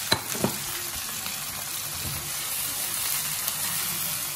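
Cubes of pork belly sizzling steadily as they sauté with onions and garlic in a hot pan, stirred with a wooden spatula that knocks against the pan twice in the first half-second.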